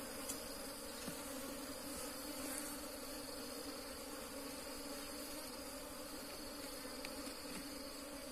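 Wild honeybees buzzing steadily as a swarm: a disturbed colony whose ground nest is being dug open.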